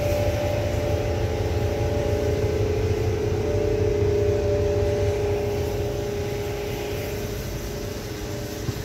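Passenger boat's engines running under way: a steady drone and hum over a low rumble, growing a little quieter over the last few seconds.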